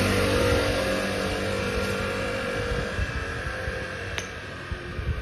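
Motor scooter passing close and riding away, its engine note steady and slowly fading. A single sharp click about four seconds in.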